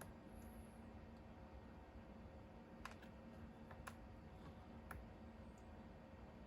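Near silence with a few faint sharp clicks about a second apart: metal multimeter probe tips tapping on the battery's cell connections while the cell voltages are checked.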